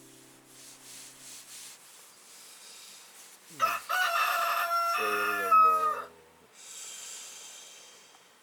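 A rooster crowing once, a single call of about two and a half seconds that ends on a held high note.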